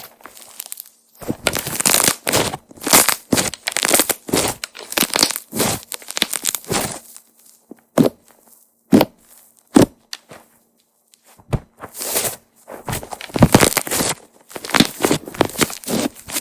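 Soft slime being kneaded and pressed by hand, giving dense runs of sticky crackling and popping clicks. In the middle the handling pauses, with a few single loud pops about a second apart before the crackling picks up again.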